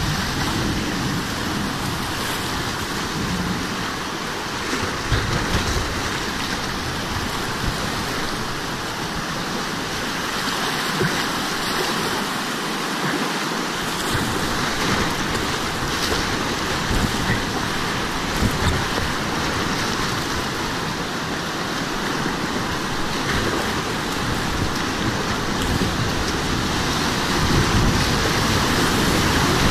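Fast river water rushing past a whitewater kayak at high flow, with the splashes of paddle strokes. The water gets louder near the end as the boat runs into a rapid.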